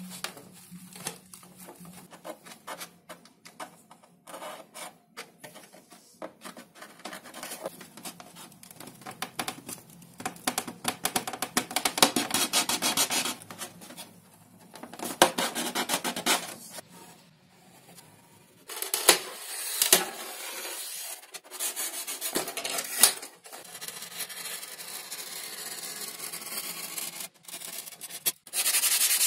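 Hands rubbing and handling pieces of 5 mm XPS foam. The result is irregular scraping and squeaking, dotted with small clicks, and busier in a couple of stretches.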